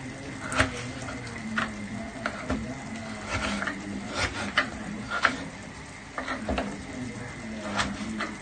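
Irregular clicks and light scrapes of kitchen utensils against a pot or board, a dozen or so scattered through, over a faint steady sizzle.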